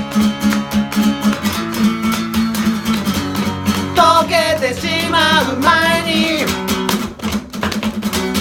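Guitar strumming chords, with a sung line about halfway through held with vibrato.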